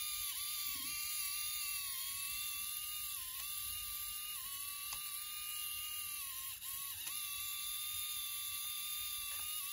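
Small LEGO micromotor running on track power through the pickup, a steady high whine with overtones that dips briefly in pitch several times, as if the motor momentarily slows.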